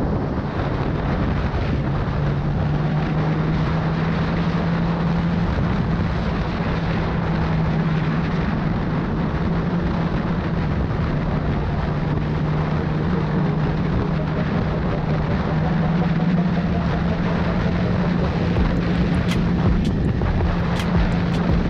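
Sport motorcycle engine running steadily at highway cruising speed, heard onboard with heavy wind rush over the microphone. A few faint ticks come near the end.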